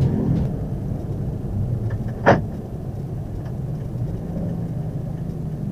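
Steady low hum of a Daihatsu Ayla 1.0 automatic's engine and road noise, heard inside the cabin while the car creeps along in slow traffic. One sharp click comes a little over two seconds in.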